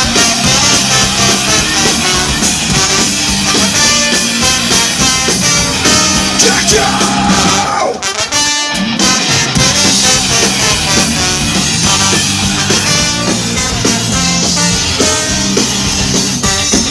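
Live rock band playing loudly, an upbeat ska-punk style tune, with a brief break in the music about eight seconds in.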